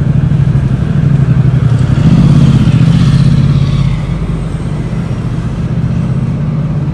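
Downtown street traffic: a steady low engine hum, with a passing vehicle swelling louder about two seconds in and fading again by about four seconds.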